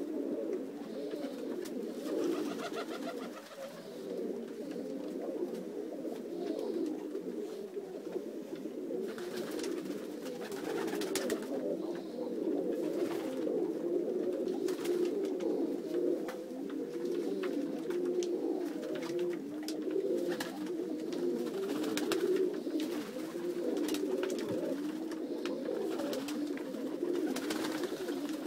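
Many domestic pigeons cooing at once, a continuous overlapping chorus of low coos in the loft, with a few brief sharp noises here and there.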